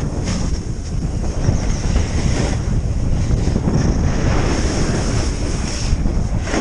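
Wind buffeting the microphone of a skier's helmet or chest camera on a downhill run, with the hiss of skis sliding over snow underneath. It is loud and steady, dominated by low rumble.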